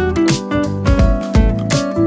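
Background music: a guitar-led track with strummed chords over a steady beat.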